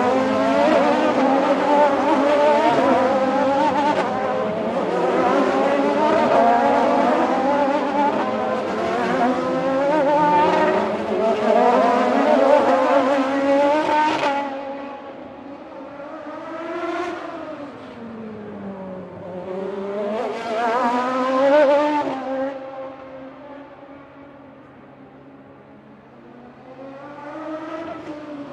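Grand Prix race car engines at high revs, their pitch repeatedly rising and falling as cars pass. The sound is a dense, loud stream of cars for about the first half, then drops to quieter single passes, one a little after the middle and another near the end.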